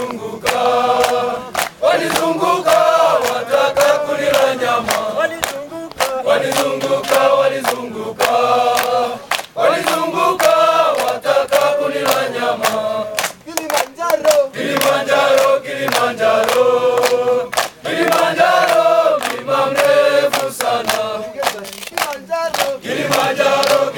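A large group of men singing a Swahili song together in full voice, in phrases with short breaks, while clapping their hands in a steady beat.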